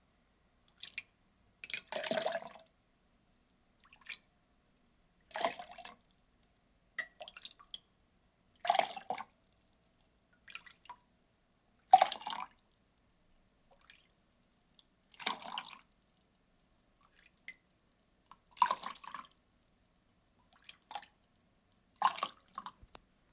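Water being poured in a series of short splashes, each under a second, with silence between them.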